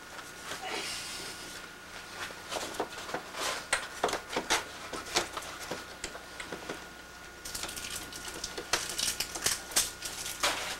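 Rustling and handling noises as a coat and a bag are handled, with scattered clicks and taps. A longer stretch of scratchy rustling comes near the end.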